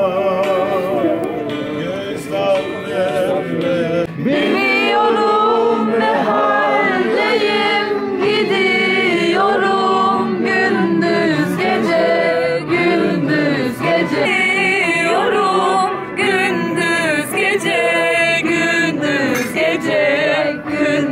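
Music with singing; the singing gets louder about four seconds in, with wavering held notes.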